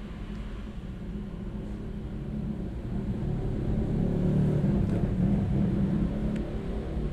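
A low rumble that swells from about three seconds in and eases off again near the end.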